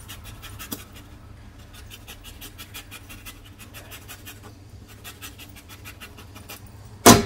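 Lemon being zested on a flat metal rasp grater, rhythmic scraping strokes about five a second in several short runs. A brief loud clatter near the end.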